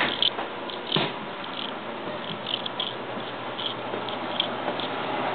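Handheld camcorder being carried through a room: a steady hiss, with a few soft knocks and clicks, the loudest right at the start and about a second in.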